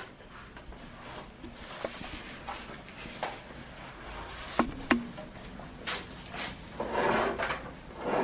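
Objects being handled in a small room: scattered light knocks and clicks, two sharper ones about halfway through, then bursts of rustling near the end.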